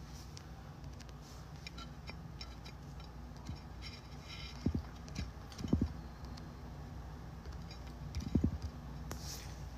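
Quiet room tone with faint scattered clicks, and a few soft, dull thumps about halfway through and again near the end.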